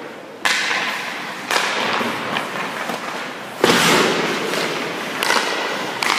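Hockey stick and puck impacts during a shooting drill: about five sharp cracks of pucks being shot and striking the goalie's pads or the boards. The loudest comes about three and a half seconds in, and each echoes through the ice arena.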